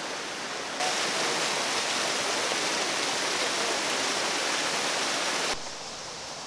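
Water rushing down a small cascade over mossy rocks, a steady splashing rush that grows suddenly louder about a second in and drops back sharply near the end.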